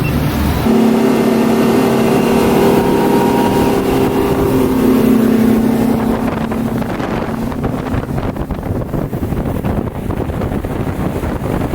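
Boat's outboard motor running at speed, a steady hum with wind rushing over the microphone. After about seven seconds the engine tone fades and the wind and water rush take over.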